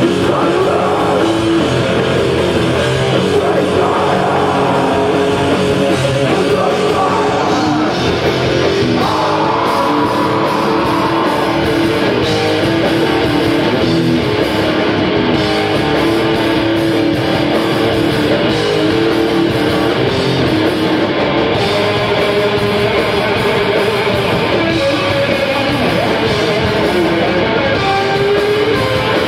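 Live metal band playing loudly: distorted electric guitar and bass over drums, heard from the crowd without a break.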